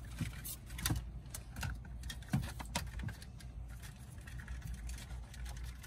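Scattered light plastic clicks and taps as a radio and AC control trim panel is handled and fitted into a BMW F30's centre dashboard, over a steady low hum.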